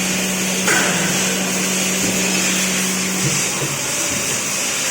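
A machine running steadily with a constant hum and a hiss, with a brief clatter about a second in; the hum drops away after about three seconds.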